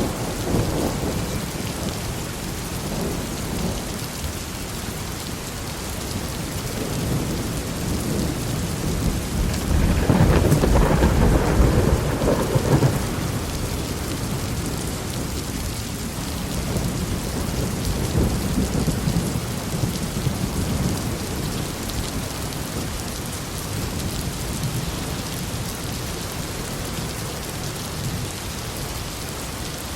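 Heavy rain falling steadily in a forest thunderstorm, with rolling thunder; the loudest peal rumbles about ten seconds in and lasts a few seconds, with fainter rumbles around it.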